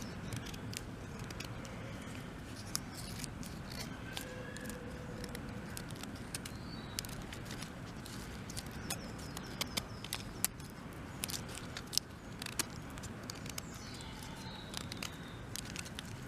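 Small X-Acto-style craft knife whittling through a piece of wood: irregular clicks and scrapes of the blade shaving and cutting the wood.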